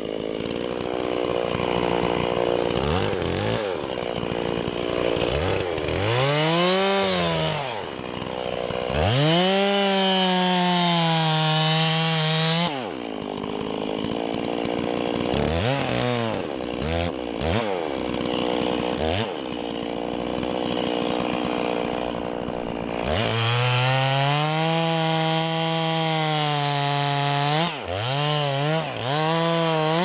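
Two-stroke chainsaw revving to full throttle as it cuts through balsam fir, then dropping back to idle between cuts, several times over. The two longest full-throttle runs come about nine seconds in and about twenty-three seconds in, with short throttle blips between.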